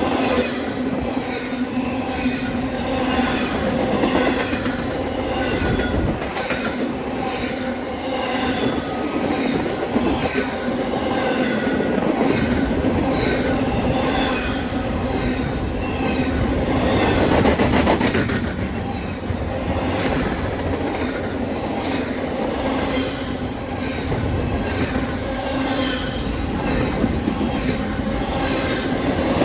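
Train rolling past on the tracks: a steady rumble of wheels on rail with short high-pitched squeals repeating throughout, swelling briefly about two thirds of the way through.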